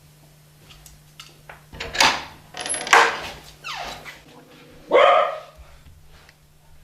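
Dog barking several times, with a falling whine between the barks, after a few faint ticks.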